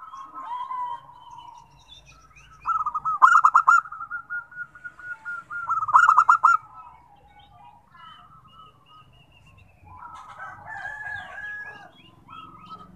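Zebra doves (perkutut) cooing: two loud phrases of rapid, stuttering coos about three and six seconds in, with fainter coos and small-bird chirps between. A denser stretch of mixed calls follows about ten seconds in.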